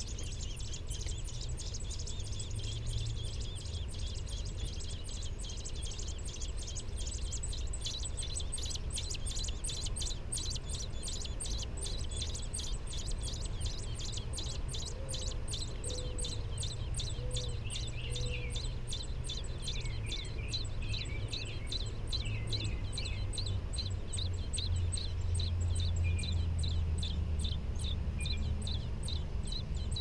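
American robin nestlings begging at the nest: a fast, even run of high-pitched peeps, about four a second, with a few lower chirps mixed in toward the end. A steady low rumble runs underneath.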